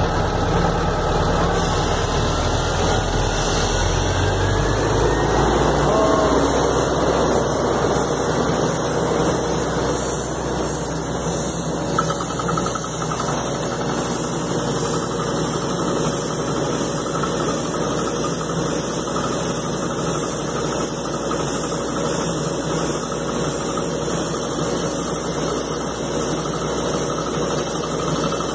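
Crawler-mounted anchor drilling rig running steadily while drilling with casing and rods, its engine and hydraulics making a continuous dense machine noise. A faint rising whine comes in the first few seconds, and the low rumble eases a little after about five seconds.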